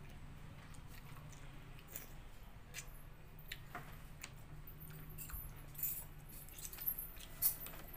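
People eating rice and chicken curry with their hands: soft squishing and chewing with scattered small clicks from the steel plates, the sharpest about seven and a half seconds in, over a faint low steady hum.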